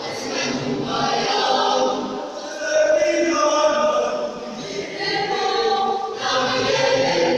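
Youth choir of girls and boys singing together, several voices held on different notes.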